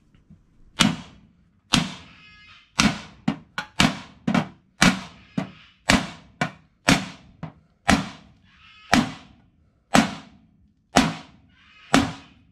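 A hammer striking the flange of a pressed-steel Subaru 4EAT automatic transmission oil pan on a steel plate, about twenty blows at an uneven pace, some with a short metallic ring. The pan's flange, bent when it was pried off the transmission, is being knocked flat so that it will seal flush.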